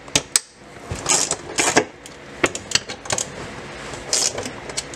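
Hand ratchet clicking in short, irregular runs with sharp metallic clicks between them, as T45 Torx bolts are backed out of the car's underbody tunnel brace.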